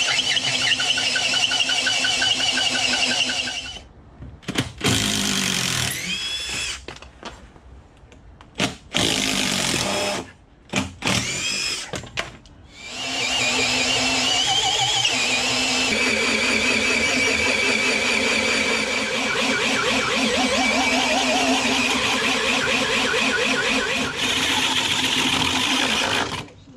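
Makita power drill turning a long bar with a hole cutter welded to its end, boring a hawse hole through a thick wooden bulwark. It runs steadily, then stops and starts several times with its speed rising and falling, then runs steadily again as the cutter breaks through.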